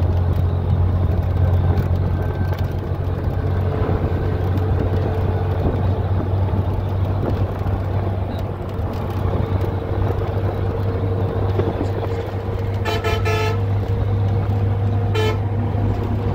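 Steady low road rumble of a moving vehicle heard from inside the cabin while crossing a bridge, with a vehicle horn honking once about 13 seconds in and again briefly about two seconds later.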